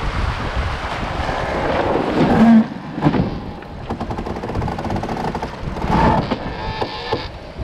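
Wind buffeting the microphone over water rushing and splashing past the hull of a sailboat under way, with a louder gust about two and a half seconds in.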